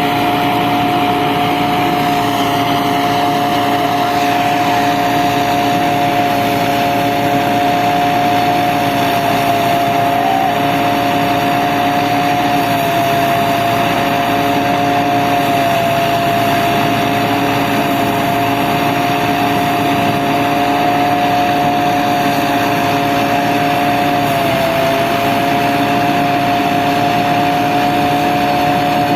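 Engine of a rice harvesting machine running steadily at a constant speed, with a steady whine over the engine noise.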